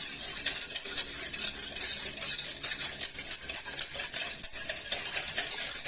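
A utensil stirring quickly in a container, with rapid clinking and scraping against its sides, as cornstarch is dissolved into cold lemon juice and water so it won't form lumps.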